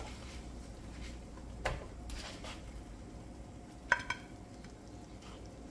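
Serving utensil and chicken pieces knocking on a ceramic plate as the karahi is plated: a light clink about a second and a half in, then a sharper ringing clink with a quick second tap about four seconds in, over a low steady hum.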